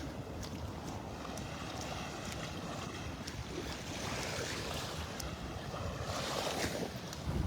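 Gulf waves washing on the beach, swelling somewhat from about four seconds in, with wind rumbling on the microphone.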